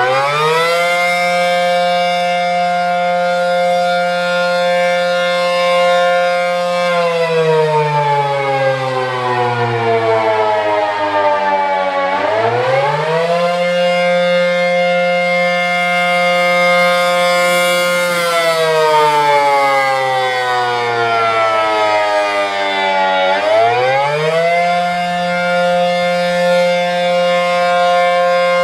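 ACA P-10 outdoor warning siren sounding the Attack signal, a loud wail that rises and falls. The pitch climbs quickly, holds steady for about six seconds, then slides slowly down before climbing again, repeating about every eleven seconds.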